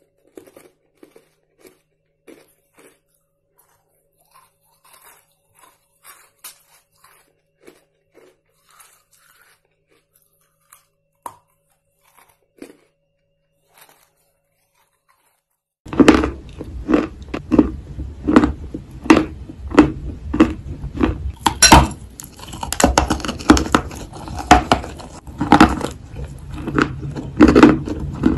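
Faint scattered clicks for about the first half, then, a little past halfway, loud close-miked crunching begins: white chalk coated in paste being bitten and chewed, with many sharp cracks in quick succession.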